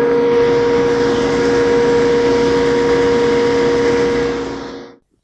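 SawStop table saw with a dado blade fitted, running steadily with a constant hum just after cutting a groove in one pass. The sound tapers away and stops near the end.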